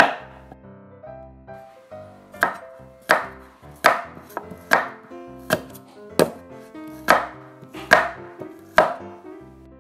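Kitchen knife chopping through onion onto a wooden cutting board: one chop at the start, then after a pause nine even chops about every 0.8 seconds. Soft piano music plays underneath.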